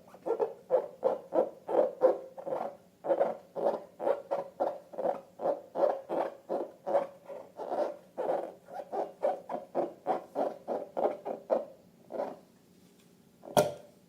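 Slime squeezed and kneaded by hand, squishing in a steady rhythm about three times a second. The squishing stops about twelve seconds in, and a single sharp click follows shortly after.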